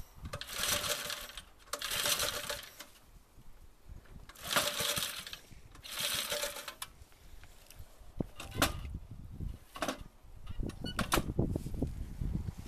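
Small single-cylinder engine on a railbike being pull-started: four pulls of the recoil starter, then from about eight seconds in the engine fires unevenly and sputters as it tries to catch.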